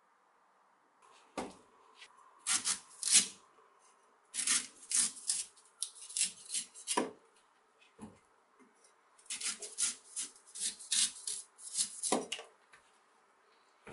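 Cleaver shaving strips of soft white husk off the tip of a young Thai coconut: a run of short, irregular scraping cuts starting about a second in, a few of them ending in a dull knock.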